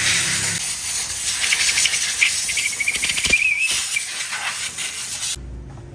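Compressed-air blow gun hissing steadily as it blows dust out of a scooter's CVT cover, cutting off suddenly near the end.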